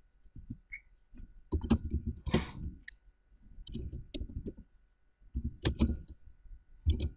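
Computer keyboard typing: about four short runs of key clicks with brief pauses between them.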